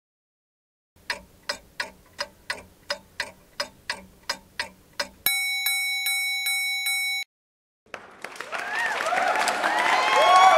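Quiz-style clock ticking sound effect, about three ticks a second, starting about a second in. A bright electronic chime then rings in quick repeated strikes for about two seconds. After a short gap, a louder, noisy sound with sliding tones builds up near the end.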